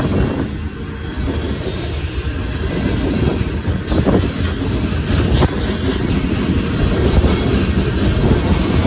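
A loaded coal train's freight cars rolling past a grade crossing: a loud, steady rumble of steel wheels on rail, broken by sharp clicks as the wheels pass over rail joints.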